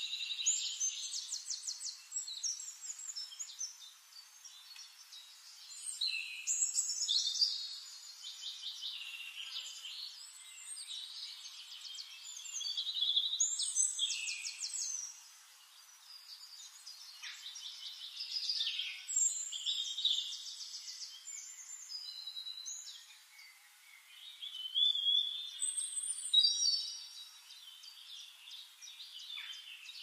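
Songbirds singing: fast high trills and chirping phrases, several overlapping, with louder bouts of song every few seconds.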